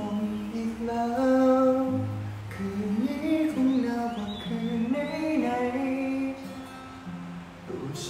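A man singing with long held notes while strumming an acoustic guitar.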